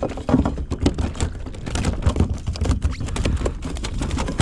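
A hooked redfish being landed at a plastic kayak: a rapid, irregular run of clicks and knocks.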